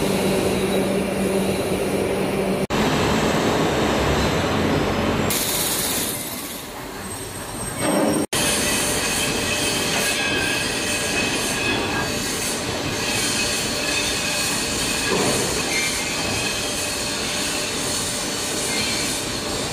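Steady din of foundry machinery, broken by two abrupt cuts, with several steady whining tones over a constant rushing noise. For most of it, from about eight seconds in, a tumble-belt shot blasting machine is running, cleaning cast steel bucket teeth.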